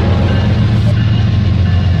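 Rail King battery-powered toy train running along its track with a steady low hum.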